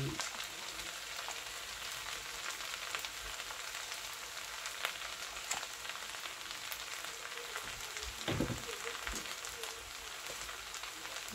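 Rice and lamb sauce sizzling in a hot pan: a steady frying hiss with scattered small clicks, and a low knock about eight seconds in, typical of a ladle against the pan.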